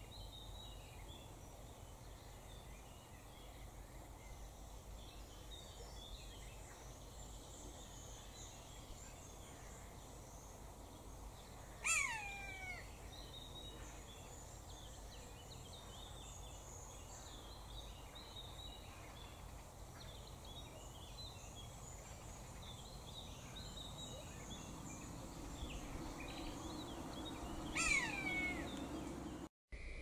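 Common buzzard calling twice, each a single loud cry that slides downward in pitch, the second about sixteen seconds after the first. Faint twittering of small songbirds goes on underneath.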